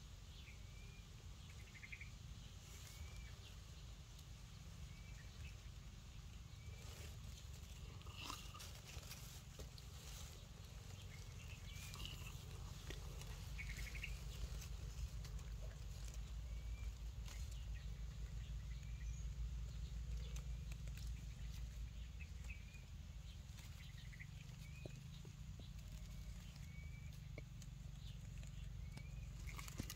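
Outdoor ambience: a steady low rumble that grows louder through the middle, with faint short high chirps every second or two and scattered soft clicks.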